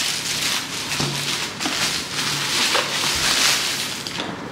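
Packaging rustling and crinkling as a parcel is opened by hand, coming in a few scratchy swells.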